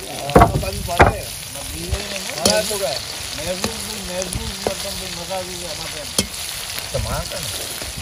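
Food sizzling in hot oil in a karahi while it is stirred with a metal slotted skimmer, which clinks against the pan several times.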